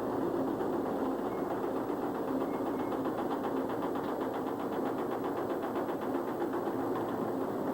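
Steady mechanical running noise, engine or machinery, with a fast, even ticking for a couple of seconds in the middle.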